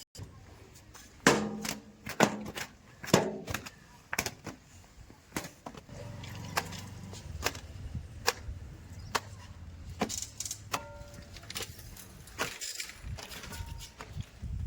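Heavy machinery at work: a string of sharp knocks and clanks, and about halfway through a low diesel engine drone that runs for several seconds and then cuts off abruptly.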